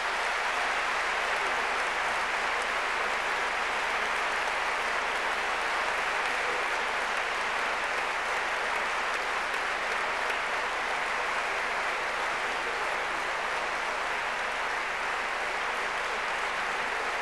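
A large audience applauding: dense, steady clapping that holds at an even level.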